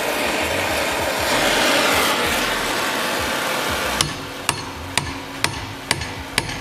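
Oxy-fuel gas torch hissing steadily as it heats a steel rivet yellow-hot, the torch noise stopping about four seconds in. Then six hammer blows, about two a second, on a steel rivet snap held against the red-hot rivet, metal on metal: hot riveting, forming the rivet's round head.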